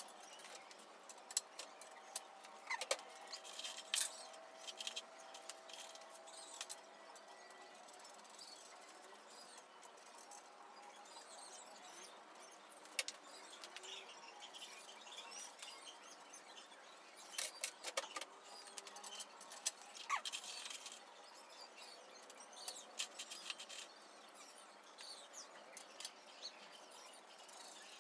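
Scattered light clicks and taps of small metal hardware being handled and fitted on a steel press frame, coming in short clusters over a quiet background.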